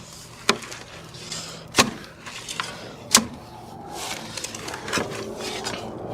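Steel shovel digging into soft soil: four sharp strikes of the blade into the dirt, about a second and a half apart, with scraping between them.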